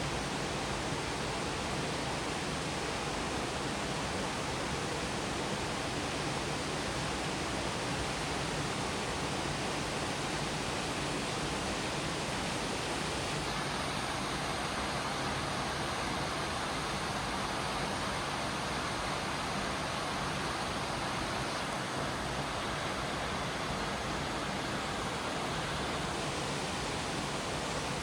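Minoh Falls, a 33 m waterfall, pouring steadily into its plunge pool: a constant, dense rush of falling water. From about halfway through, a faint thin high tone runs over it for a while.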